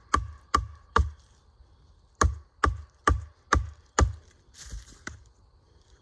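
Wood chisel being driven into a sapling pole with a stick used as a mallet, chopping out a notch for a ladder rung: three sharp knocks at about two a second, a pause of about a second, then five more at the same pace. A short scrape and a softer knock follow a little before the end.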